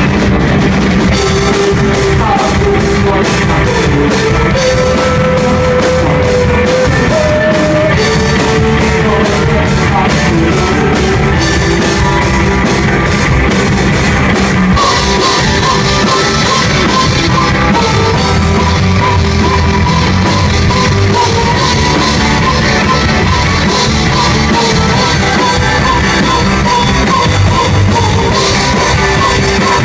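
Rock band playing live and loud, a melodic lead line over dense drum-kit playing. About halfway through the sound brightens and a quick repeating higher figure takes over the melody.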